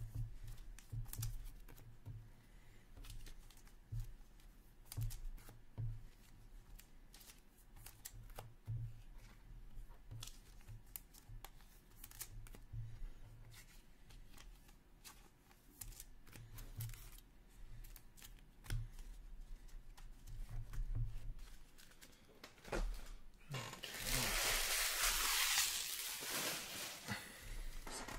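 Trading cards being handled and sorted by hand on a table: scattered light clicks and flicks of card edges. Near the end comes about three seconds of louder rustling of packaging.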